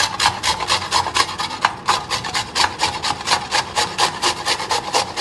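A peeled raw mango being grated on a stainless steel hand grater: quick, even rasping strokes, about five a second.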